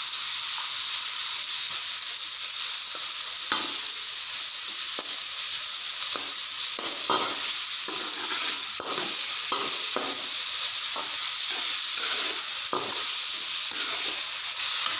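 Chopped onions sizzling in hot groundnut oil in a metal kadai, softening with salt, over a steady hiss. A steel ladle stirs them, scraping against the pan in short, irregular strokes that begin a few seconds in.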